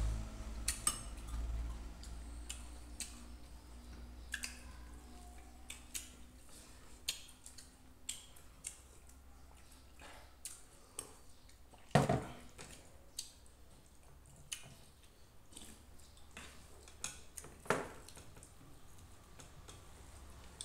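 Eating sounds at a table: a spoon clinking and scraping against ceramic plates and bowls, scattered light clicks and taps, with one louder knock about twelve seconds in.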